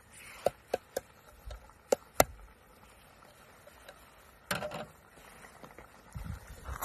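A wooden spoon knocking against a plastic measuring mug and the rim of a steel pot as mushrooms are scraped into risotto: several sharp taps in the first two seconds or so, then a brief scrape about four and a half seconds in.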